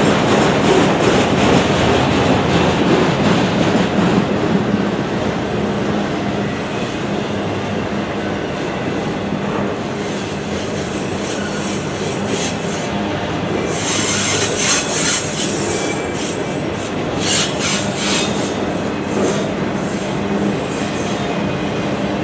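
Freight train's autorack cars rolling past: a steady rumble of steel wheels on the rails, with high-pitched wheel squeal flaring up a few times in the second half.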